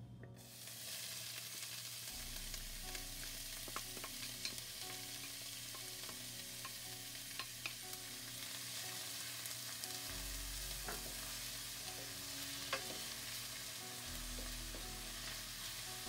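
Chopped onions sizzling in hot olive oil in a stainless steel pan. The sizzle starts suddenly as the onions go in, and a wooden spoon stirring them makes scattered light clicks against the pan.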